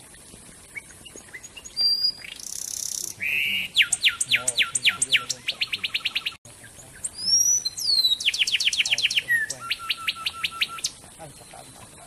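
A wren singing two loud song phrases, the first about two seconds in and the second about seven seconds in. Each phrase opens with harsh, buzzy notes and goes on into a fast series of clear down-slurred whistles that quicken into a trill.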